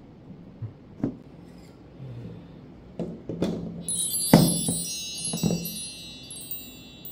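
Several dull knocks of objects being handled, then from about four seconds in the high, overlapping tinkling of wind chimes, which rings on.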